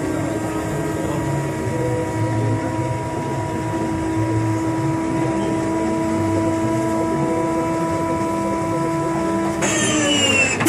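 Electric inertia starter of an Antonov An-2's radial engine whining steadily at speed over a low pulsing hum. Near the end the whine drops in pitch as the starter is engaged and begins cranking the engine over.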